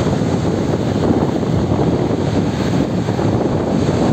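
Floodwater released through a dam's open spillway gates, a loud steady rush of falling and crashing water, deepest in the low end.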